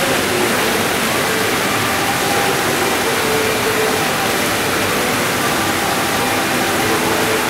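A row of small fountain jets in a long pool, splashing with a steady, unbroken rush of water.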